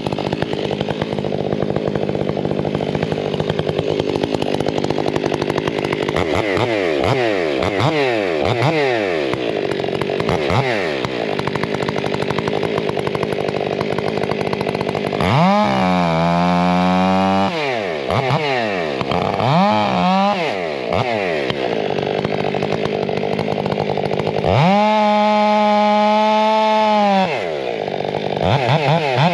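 Stihl 500 two-stroke chainsaw running throughout while bucking logs into lengths. It is revved up and down repeatedly, with two longer full-throttle runs, one in the middle and one near the end.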